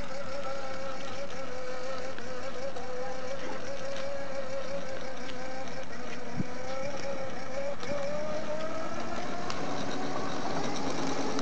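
Battery-powered children's ride-on toy quad driving along, its small electric motor and gearbox giving a steady whine that wavers slightly in pitch. A single short knock sounds about six seconds in.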